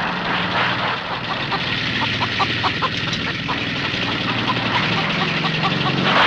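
An engine running steadily with a low, even hum, and a scatter of short sharp ticks through the middle stretch.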